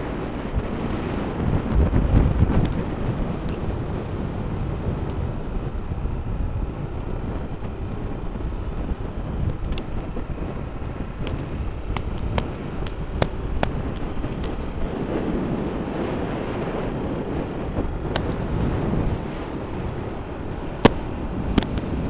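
Wind buffeting an action camera's microphone on a road bike moving at race speed, a steady low rush. A few sharp clicks come through in the second half, the loudest near the end.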